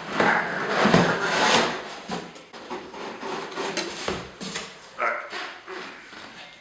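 Cardboard box and styrofoam packing rubbing and scraping as a Mac Pro tower is lifted out of its shipping box. The scraping is loudest in the first two seconds, then breaks into shorter scuffs.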